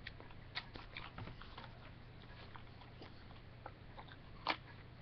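Faint, scattered mouth clicks of a person chewing a jelly bean, with one louder click about four and a half seconds in.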